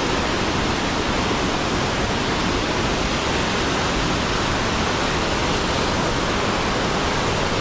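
A waterfall's falling water, rushing steadily and evenly without a break.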